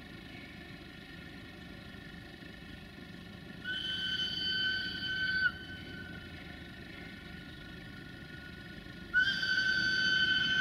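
Whistle of the 060-DA (LDE2100) diesel locomotive 60-0897-8 blowing twice over a steady low rumble: a steady high multi-tone blast of about two seconds, then a second, longer blast starting near the end, each dipping slightly in pitch as it cuts off.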